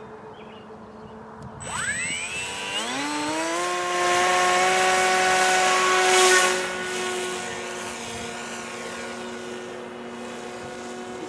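Bixler 2's brushless electric motor and pusher propeller spooling up about two seconds in, the whine rising in pitch and then holding a steady tone. It is loudest with a brief rush of air just past six seconds, then continues steady but quieter as the hand-launched plane flies off.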